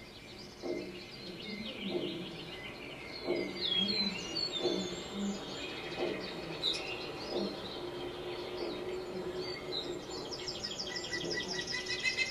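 A chorus of birds chirping and calling, many short, quick, falling notes overlapping, with a fast pulsing frog-like trill coming in and growing louder near the end.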